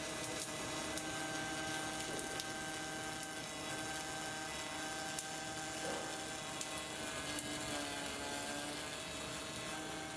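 Robotic MIG/MAG welding arc, fed by a wire feeder, crackling and hissing steadily with a steady machine hum underneath.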